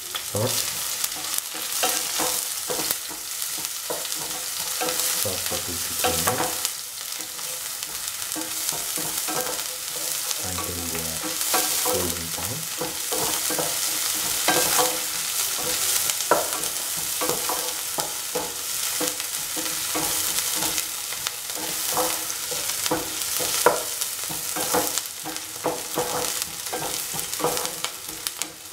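Sliced onions frying in hot oil with cumin seeds in a pan, sizzling steadily, with frequent short scrapes and clicks as they are stirred.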